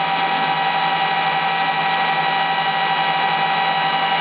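Opened-up desktop server running after boot: a steady whir of its cooling fans, with several steady whining tones over an even hiss.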